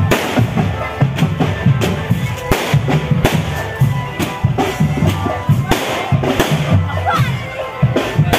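Loud drum-band music accompanying a canmacanan tiger-costume performance: a busy, driving beat of bass drums and other drums, with frequent sharp rim strikes.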